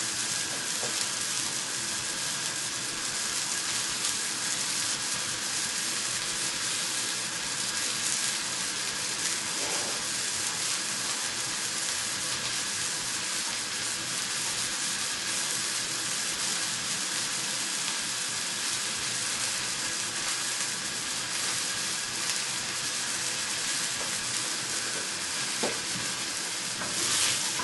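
Sliced onions sizzling steadily in a little oil in a frying pan on a gas hob, just starting to cook.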